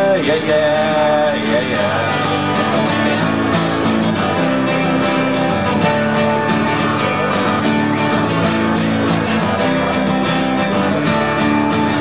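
Country song in an instrumental passage, led by strummed acoustic guitar with a steady beat.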